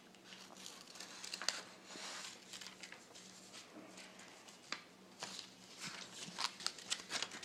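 Scissors cutting out a paper shape: quiet, irregular snips with paper being handled.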